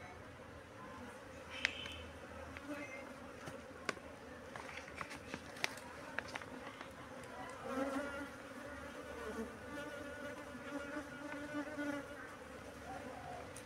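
A colony of honeybees buzzing in a steady hum, louder and wavering from about eight to twelve seconds in as bees fly close. A few sharp clicks sound in the first half.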